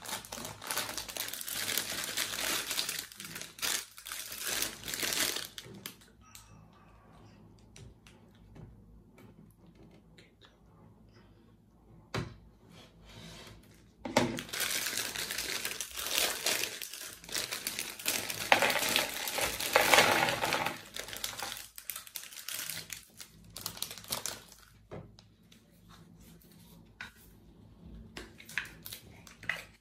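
Crinkly plastic bag of dried bread rusks being handled, crackling in two long stretches, the second one louder, with quieter scattered clicks and taps between them and near the end.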